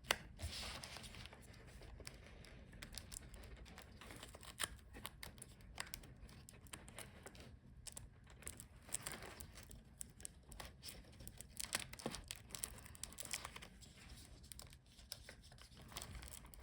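Faint, scattered small clicks and plastic rustling from hands handling a laptop screen's video cable connector and the replacement LCD panel.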